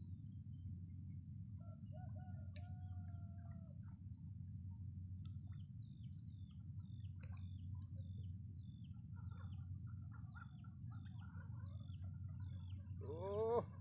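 Faint fowl calls, typical of chickens: a drawn-out call about two seconds in and a louder rising call near the end. A small bird chirps over and over, about one and a half times a second, through the second half, over a steady low rumble.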